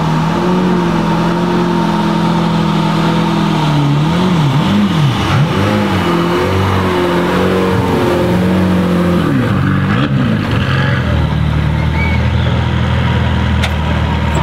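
Mercedes-AMG GT Track Series race car's 4.0-litre twin-turbo V8 running at crawling speed. In the middle come a few throttle blips, the revs rising and falling. Near the end it settles to a lower, steady idle.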